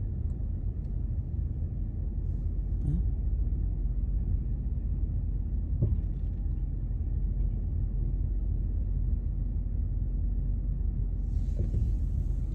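Steady low rumble of a car's engine and tyres, heard from inside the cabin while moving slowly.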